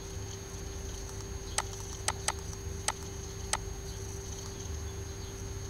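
Five short, sharp computer mouse clicks, spread over about two seconds from a second and a half in, over a steady low hum.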